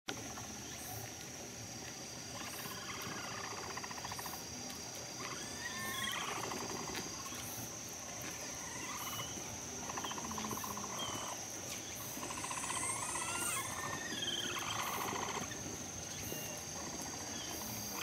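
A herd of capybaras calling together in a chorus: repeated buzzy, pulsing calls with short whistle-like glides, coming in bouts of two to three seconds. A steady high-pitched whine runs underneath.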